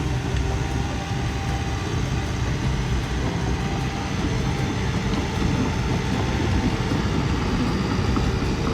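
Heavy earthmoving machine's diesel engine running steadily, a dense low rumble with no pauses.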